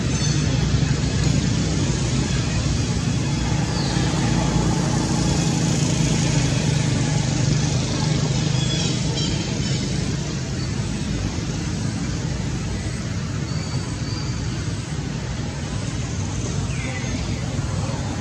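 Steady vehicle noise: a continuous low engine hum under road noise.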